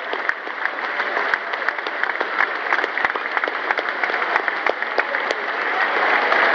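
Football stadium crowd applauding, with individual sharp hand claps from fans close by standing out. The applause swells slightly near the end.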